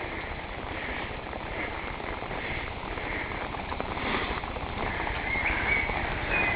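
Footsteps on a wet paved sidewalk, with a steady hiss of heavy rain. The steps fall about twice a second.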